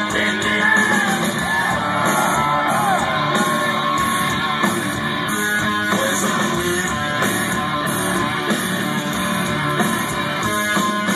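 Live hard rock band playing loudly, with electric guitars and drums, and a voice singing over the music in the first few seconds.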